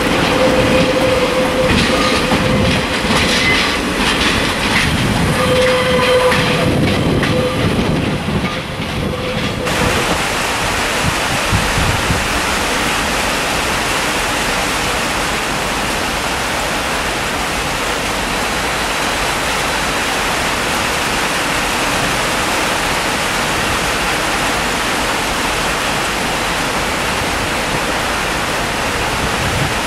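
A passenger multiple-unit train running past on rails: quick clickety-clack of the wheels over rail joints and points, with a high squeal that comes and goes. About ten seconds in, this gives way to a steady, even rushing noise that runs on unchanged.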